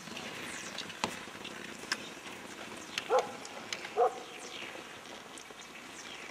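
A dog barks twice, about a second apart, a little after three seconds in.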